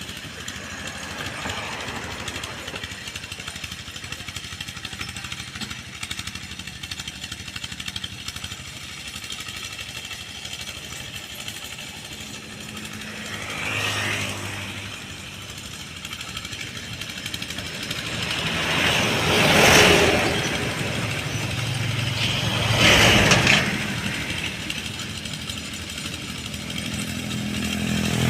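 An old tractor engine running steadily, with three louder swells: a small one about halfway through, the loudest about two-thirds of the way in, and another a few seconds later.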